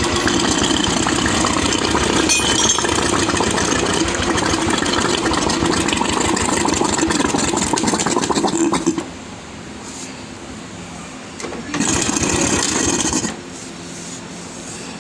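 Royal Enfield UCE Electra single-cylinder engine running steadily after its top-end rebuild, then shut off about nine seconds in. It is started again briefly near the end and cut off after a second or two.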